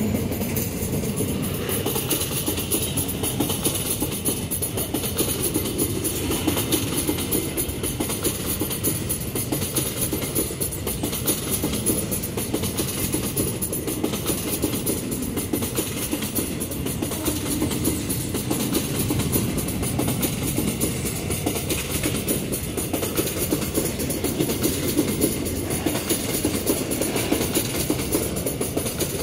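Empty steel ore gondola cars of a long freight train rolling past at close range: a steady low rumble of wheels on the rail.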